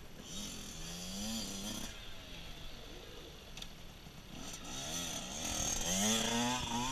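Small dirt bike engine revving, its pitch rising and falling in two spells: briefly about a second in, then again from about four and a half seconds, louder near the end.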